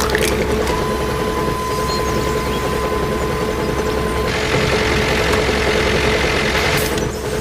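Engine-like running sound, steady, with a constant whine over it; about four seconds in it turns hissier.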